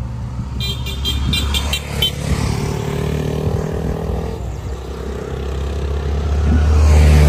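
Motor vehicle engine running with a steady low hum, getting louder toward the end as it comes closer.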